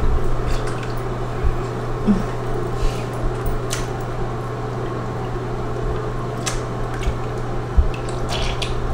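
Bath water splashing and dripping as a wet washcloth is squeezed and rubbed over a baby's head in a bathtub, with scattered small splashes over a steady low hum.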